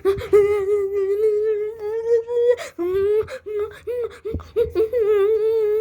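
A person's voice making a sustained nasal hum on one high note, held for about two and a half seconds, then broken into shorter stretches of the same note with brief gaps.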